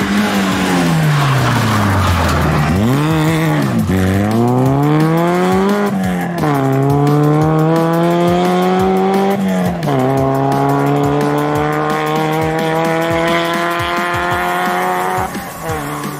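Opel Corsa GSi / Vauxhall Nova GTE rally car's four-cylinder engine at full throttle. The note drops steeply as the car comes past and slows, dips once more, then climbs through two upshifts, about six and ten seconds in, as it pulls away. The revs fall off near the end.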